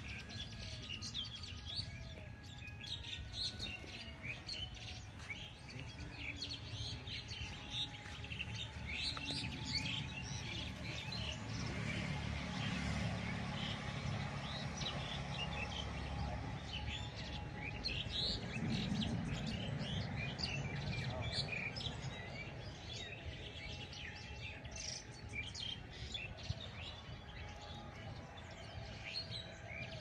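Many birds chirping and calling together in a dense chorus of short, quick notes, over a steady low rumble of background noise.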